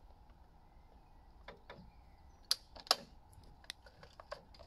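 A few sharp, separate clicks and light taps from handling the chainsaw on its mill, the loudest two about two and a half and three seconds in, over a faint steady background.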